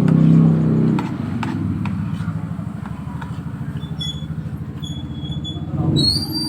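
A motorcycle engine running with a fast, even pulse, louder in the first second and again near the end.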